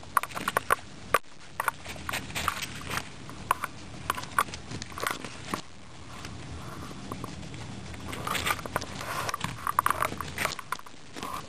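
Several guinea pigs crunching and gnawing raw carrot in irregular flurries of crisp little bites. The bites thin out for a couple of seconds in the middle, then pick up again.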